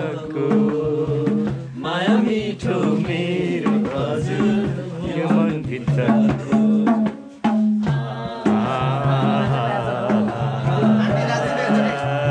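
Background music: a song with a singing voice over a steady percussion beat and a repeating bass line.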